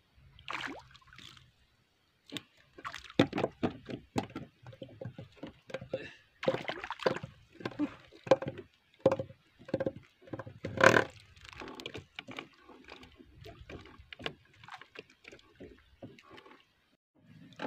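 Irregular knocks, taps and slaps on the wooden hull of a small outrigger canoe, with some water sloshing, as fish are hauled aboard on a sabiki handline and unhooked by hand.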